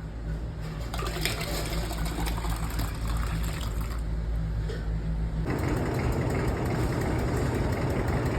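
A small motor running with a steady low hum, which changes abruptly about five and a half seconds in to a rougher, noisier low rumble.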